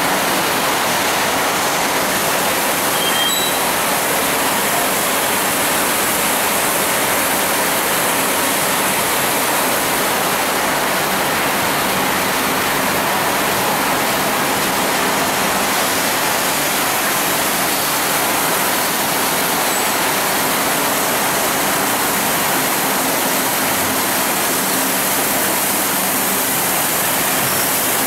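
Raw cashew size grader running: a steady rushing clatter of raw cashew nuts tumbling through the rotating drum screen and pouring out into the sacks below, with a faint steady machine hum under it.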